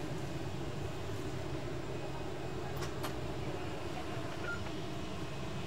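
Steady low rumble of the empty cabin of a parked Boeing 747 jumbo jet, with two faint clicks about three seconds in.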